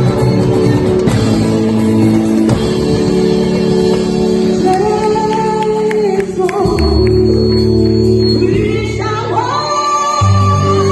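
Worship music with singing over guitar and bass; the sung lines come in about halfway through and again near the end.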